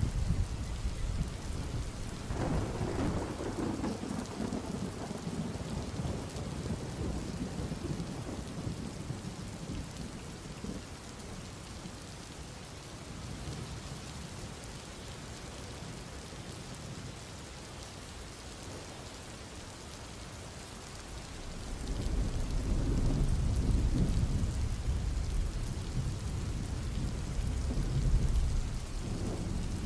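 Thunder rumbling in two long, low rolls, one starting a couple of seconds in and a louder one about 22 seconds in, over a steady hiss of rain.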